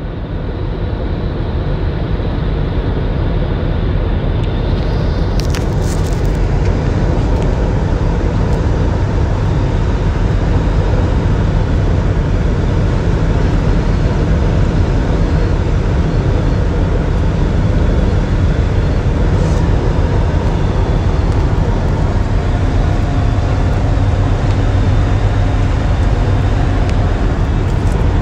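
Steady road and engine noise inside a moving car's cabin, a low drone under an even rush of tyre and wind noise.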